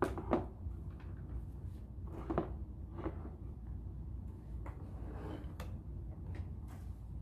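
Plastic vacuum cleaner parts and attachments being handled and fitted: a scattering of clicks and knocks, the loudest at the very start and about two and a half seconds in.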